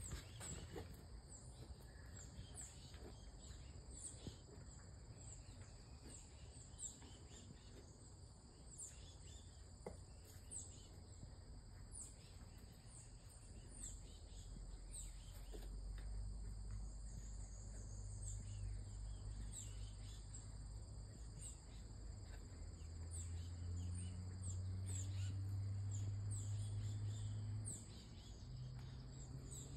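Faint outdoor ambience: short, thin, high-pitched chirps repeating about twice a second. Under them is a low steady hum that grows louder in the second half and drops off about two seconds before the end.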